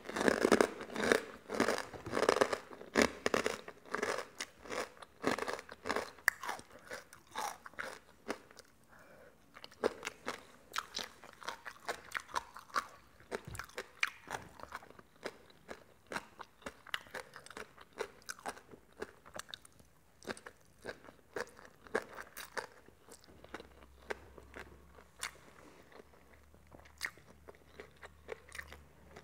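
Close chewing and crunching of crispy pork rinds (khaep mu) eaten by hand with som tam: loud and dense for the first few seconds, then softer, sparser chewing.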